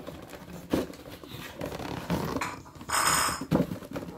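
Cardboard toy packaging being handled and pulled apart: scattered knocks and rustles, with a louder rasping scrape about three seconds in.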